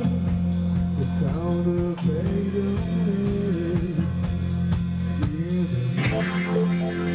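A live rock band playing a song: electric guitars, bass guitar and hand percussion over a steady beat, with sustained low notes and sliding pitched lines.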